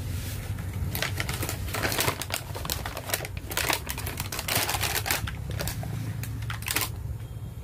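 Thin plastic blister packaging crackling and snapping as small plastic toys are pulled out of it: a quick, irregular run of clicks and crinkles starting about a second in and stopping shortly before the end.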